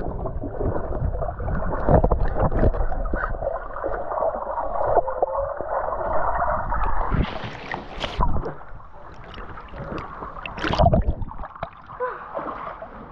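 Swimming-pool water splashing and sloshing, with irregular sharp splashes among a continuous rough wash of water noise.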